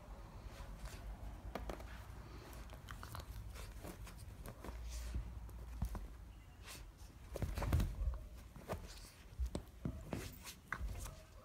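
An American hairless terrier and a Sphynx kitten play-fighting on a fabric sofa: soft irregular clicks, rustles and knocks as the dog mouths and nibbles at the kitten, loudest about eight seconds in.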